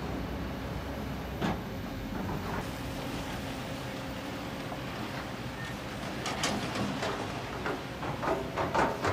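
Kobelco SK200 hydraulic excavators' diesel engines running steadily while they dig into a sand and rock cliff face. There is a single knock about one and a half seconds in, and a run of louder knocks and clatters in the last three seconds.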